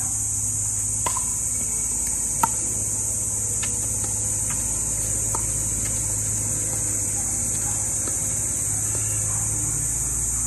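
Pickleball rally: paddles striking the plastic ball with sharp pops about once a second, five hits in all, the loudest about two and a half seconds in. Under them runs a steady high insect drone.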